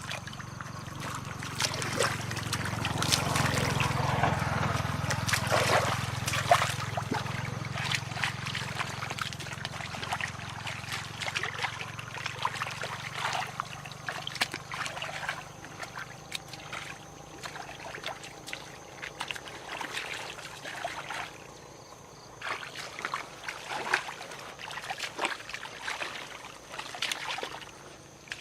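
Water splashing and trickling in many small irregular splashes, with a low hum that swells and fades over the first half and a faint steady high whine.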